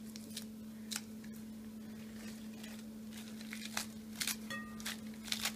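Butterhead lettuce leaves torn by hand into pieces, giving short, crisp tearing and crinkling sounds scattered through, more of them in the second half. A steady low hum runs underneath.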